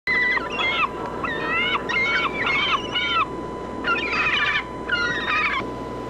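Several gulls calling, their high, falling cries overlapping in runs with short gaps, over a steady rushing noise and a constant faint high tone.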